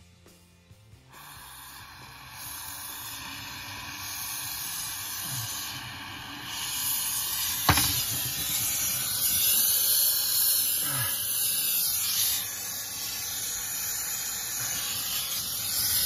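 Jeweller's gas soldering torch hissing steadily as its gas flows and the flame burns to heat the work for soldering. The hiss starts about a second in and grows louder in steps, and there is one sharp click about eight seconds in.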